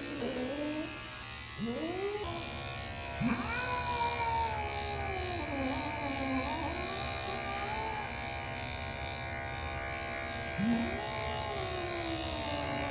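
An upset cat's long, drawn-out yowls, three of them: each begins with a sharp rise in pitch, then holds and slowly sinks over several seconds. Background music plays steadily under them.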